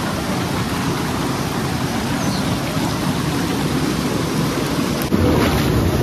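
Shallow mountain stream rushing over rocks, a steady rush of water that gets louder about five seconds in.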